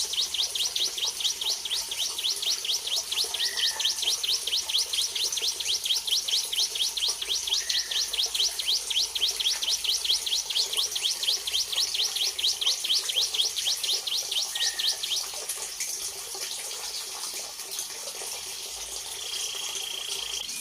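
Bar-winged prinia (ciblek kristal) giving a long run of quick, high, falling notes, about five a second, which stops after some fifteen seconds. A few lower single chirps come in between, and near the end there is a steady high whistle.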